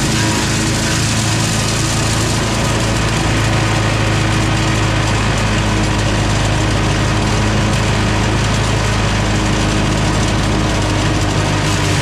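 Echo Bear Cat SC3306 chipper shredder running steadily, its small gas engine and spinning chipper making a loud, even drone while thin brush branches are fed through and chipped.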